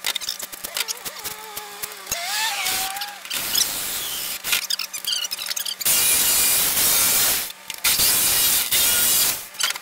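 Power drill boring into the plastic lid of an ice chest to cut the fan opening, running in two loud stretches of about a second and a half each in the second half. Before that come squeaks and clicks as the plastic is handled.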